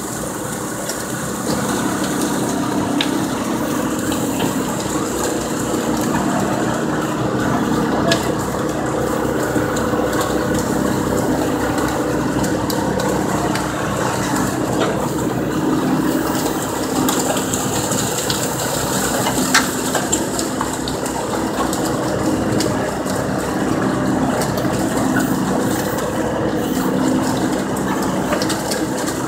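A purse seiner's engine and hydraulic deck machinery running steadily with an even hum, with a few faint clicks.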